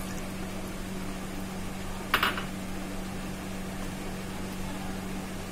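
Steady low hum under a faint even hiss; about two seconds in, one brief noise stands out.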